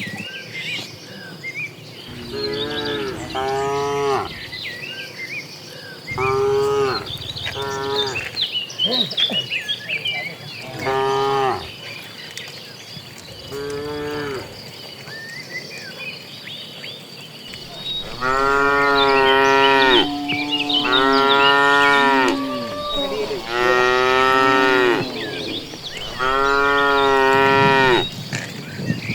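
Cattle mooing repeatedly: about eight calls, the last four from about eighteen seconds in longer and louder. Birds chirp faintly between the calls in the first half.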